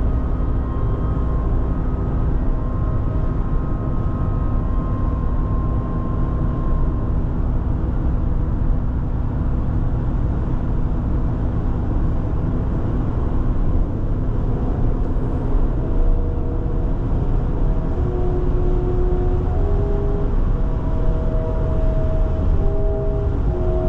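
Steady low rumble of a car driving, tyre and road noise heard from inside the vehicle. Soft music holding long notes plays underneath.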